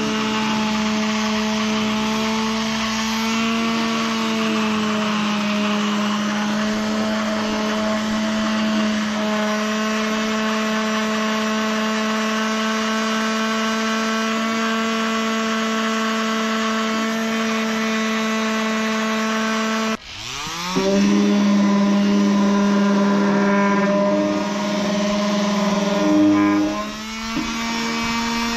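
Bosch quarter-sheet orbital sander running steadily with 80-grit paper on a red oak desktop, stripping the old finish. About two-thirds of the way through it cuts out suddenly and spins straight back up, then dips and changes pitch briefly near the end.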